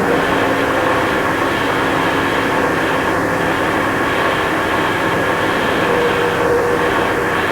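Noise music: a dense, steady wall of hiss and rumble with a few faint held hum tones, unchanging in level.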